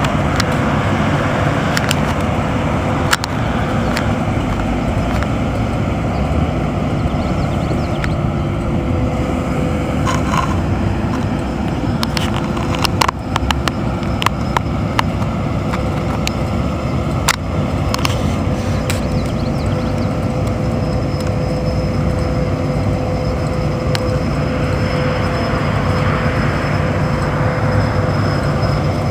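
John Deere combine harvester's diesel engine running steadily as the machine drives and turns, with a thin steady whine above the rumble. Scattered sharp clicks and ticks come in about a third of the way in and stop a little past halfway.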